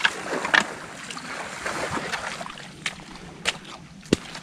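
Shallow swamp water sloshing and splashing as hands grope in the mud for snails, with several sharp clicks and knocks scattered through.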